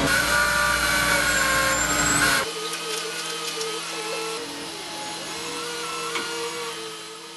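Heavy diesel construction equipment running, loud and steady, then dropping abruptly about two and a half seconds in to a quieter hum with a few whining tones.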